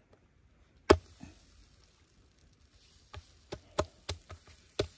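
Hand slapping and patting rounds of flatbread dough onto the inner wall of a clay tandoor oven: one sharp slap about a second in, then a quick run of pats near the end.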